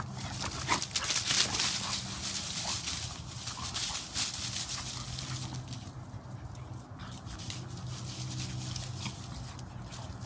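Two Dalmatians play-fighting, with dog noises and scuffling through grass and fallen leaves, busiest in the first few seconds. A steady low hum sits underneath.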